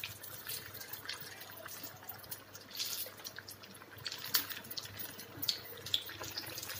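Gram-flour-battered potato slices deep-frying in hot oil in a kadai: steady sizzling with irregular crackles and pops, sharper and more frequent from about four seconds in.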